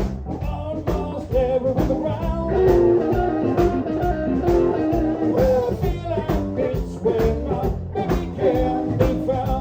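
A live blues band playing a shuffle, with electric guitar over a steady rhythm section.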